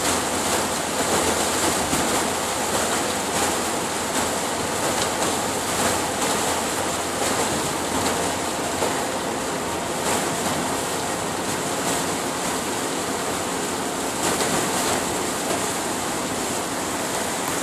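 Heavy rain on a moving van together with the hiss of tyres on the flooded road, heard inside the cabin as a steady rushing noise.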